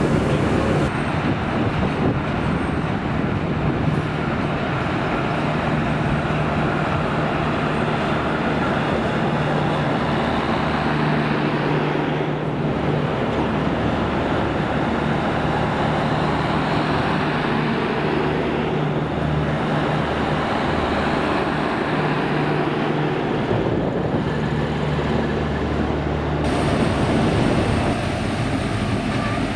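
Train running, a steady engine drone with a low hum under continuous rolling noise.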